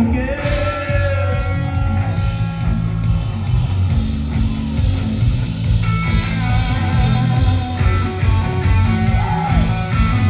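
Rock band playing live: electric guitar over a loud, steady full-band backing in a passage without singing.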